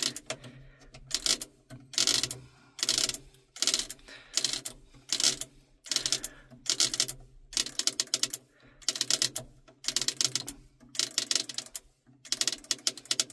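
The clockwork of a locomotive's registering speedometer being wound up: a ratcheting clatter in repeated short strokes, about one and a half a second.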